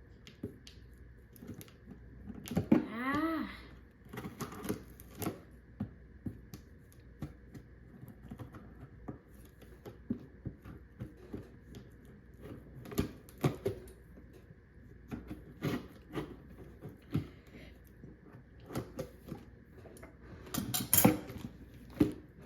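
Hands working at a shipping box, making scattered clicks, taps and scrapes at irregular intervals. A short pitched sound bends up and down about three seconds in, and there is a loud knock near the end.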